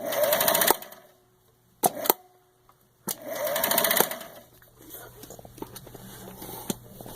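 Singer Stylist 457 zigzag sewing machine running in two short bursts of about a second each, with sharp clicks between them, then a quieter stretch with light ticking. The bobbin winder is engaged but not spinning properly unless its switch is held, which the owner thinks needs tightening or adjusting.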